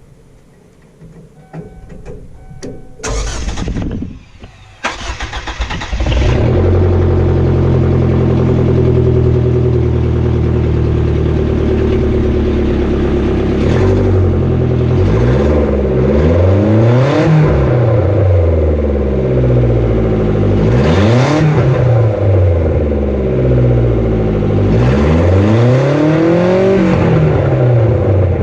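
1999 Kia Sportage four-cylinder engine cranking and catching about six seconds in, then running and being revved several times, the pitch rising and falling back each time. It has just had a tune-up, and it starts and idles okay.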